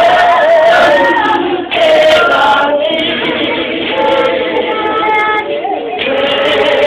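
Church congregation of men and women singing a hymn together, voices holding long notes with a brief dip a little under two seconds in.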